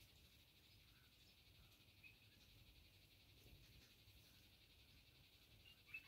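Near silence: a faint, steady, high-pitched trill in the background, with two short, faint bird chirps, one about two seconds in and one near the end.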